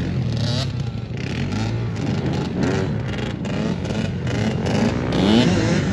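Dirt bike and sport quad engines running and revving, the pitch rising and falling again and again with the throttle as they ride wheelies.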